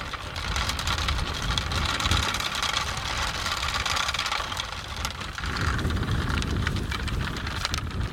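Wind buffeting the microphone with an uneven low rumble, over a steady hiss.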